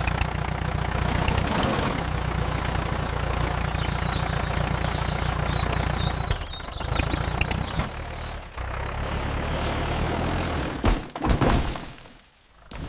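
Tractor engine idling with a steady low putter, dipping briefly twice, then a couple of quick whooshes near the end.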